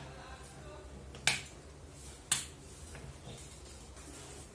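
Two sharp clicks about a second apart, over a low background hum.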